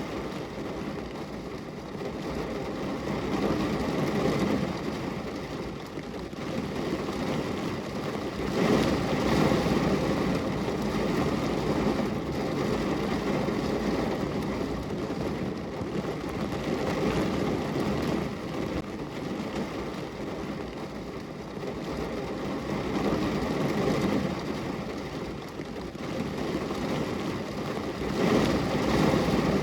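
Steady rain falling, a dense even hiss that swells and eases every few seconds.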